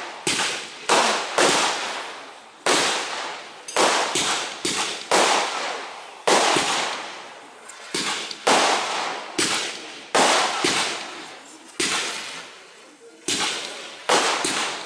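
Fireworks display: a quick, uneven series of sharp bangs, roughly one a second or faster, each dying away over about half a second.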